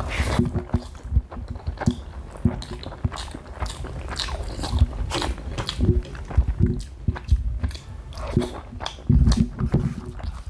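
Close-up eating sounds: a person biting and chewing hard-boiled eggs and green chillies, with irregular wet clicks and crunches from the mouth and a few heavier low thuds.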